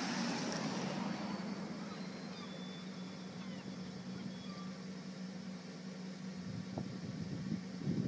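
A car that has just passed fades away over the first second or two, leaving outdoor ambience with a steady low hum and a few faint high whistles.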